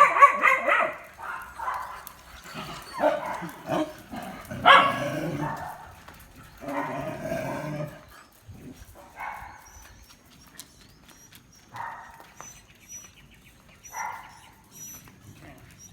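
Dogs barking: a loud burst of barks at the start, then single barks every couple of seconds that grow fainter.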